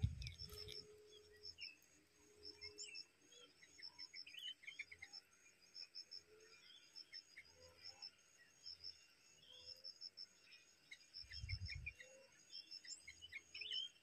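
Faint insect chirping in a steady, even rhythm, with scattered short high bird chirps over it. A low rumble comes through briefly near the end.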